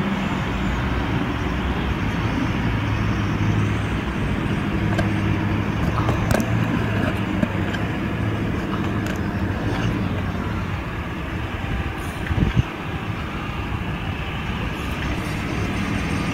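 Street traffic: a steady wash of road noise with the low, even hum of a vehicle engine running nearby, and one short thump about twelve seconds in.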